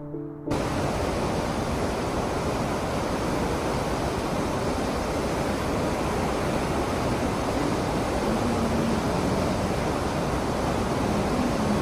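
Steady rushing of a cruise ship's churning wake and the sea, mixed with wind noise, starting abruptly about half a second in as soft music cuts off.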